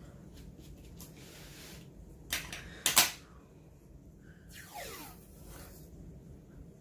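Crafting handling sounds: a short rustle, then scissors set down on the table with a sharp clatter about three seconds in. Near the end comes a short scraping screech falling in pitch as washi tape is pulled out along the plastic-covered diamond painting canvas.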